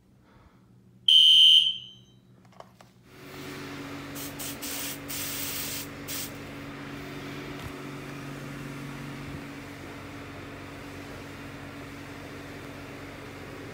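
A smoke detector gives one loud, high beep about a second in. From about three seconds in a steady rush of air with a low hum takes over, with a few short hissing sprays around five seconds in.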